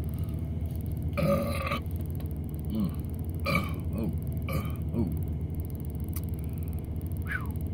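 A man belching several times, the longest and loudest about a second in, followed by shorter belches and throat sounds, over the steady low hum of a vehicle cab.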